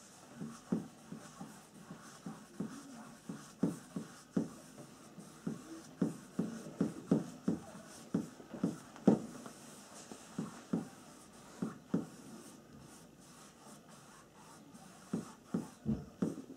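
Paintbrush strokes on a stretched canvas: an irregular run of short brushing and dabbing strokes, sometimes several a second, with a quieter spell a little after the middle.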